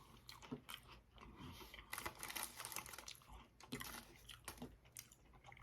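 Faint close-up chewing and crunching of chocolate-covered Pocky biscuit sticks: a scatter of small crisp clicks and crackles, busiest about two seconds in and again near four seconds.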